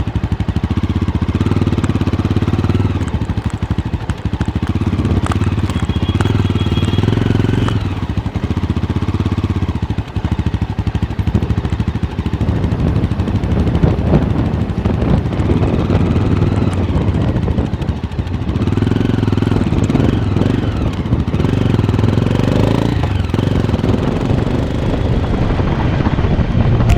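Mahindra Mojo 300's single-cylinder engine and exhaust running under way, with a grunty note that rises and falls as the throttle opens and closes.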